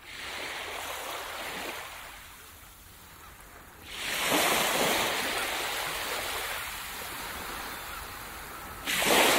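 Ocean surf washing onto a sandy beach, swelling and fading, with a louder wave breaking about four seconds in and another near the end.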